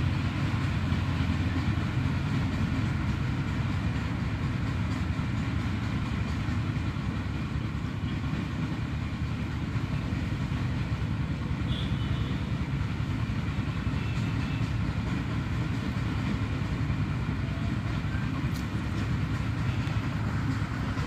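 A train passing on the railway line: a steady low rumble that holds level.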